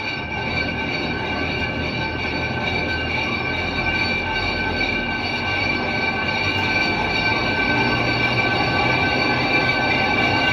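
Steel lock gate of an Erie Canal lock swinging on its drive machinery: a steady metallic squeal with several high tones held over a low rumble, growing slightly louder.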